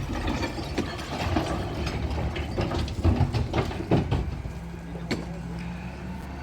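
A demolition machine's engine running steadily under repeated clanks and knocks, the loudest a few seconds in.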